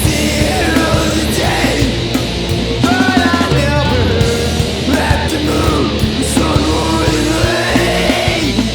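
Heavy punk/metal rock band playing live, loud and continuous.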